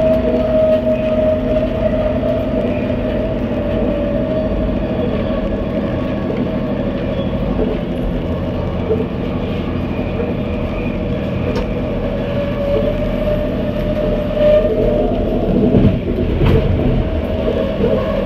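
SkyTrain car running along the elevated guideway, heard from on board: a steady whine from its linear induction motor over the constant rumble of the wheels, with a couple of sharp clicks in the second half.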